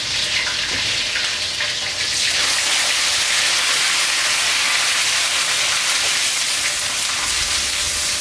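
Chopped onion, garlic and ginger sizzling in hot vegetable oil in a pan: a steady frying hiss that grows louder about two seconds in.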